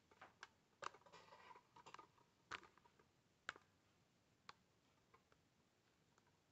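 Faint handling noise: a handful of sharp small clicks and knocks spread over the first few seconds, with a short rustle about a second in.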